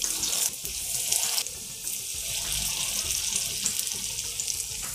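Semolina paniyaram batter sizzling in hot oil in the wells of a paniyaram pan as spoonfuls are dropped in: a steady high hiss that flares up briefly a few times as new batter goes in.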